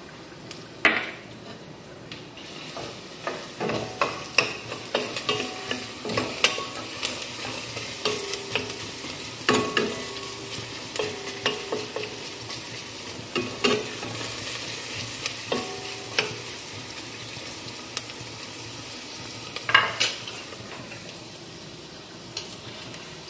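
Chopped onion and carrot sizzling in oil in a stainless-steel pot, stirred with a wooden spoon that knocks and scrapes against the pot again and again; a louder clatter of cookware comes near the end.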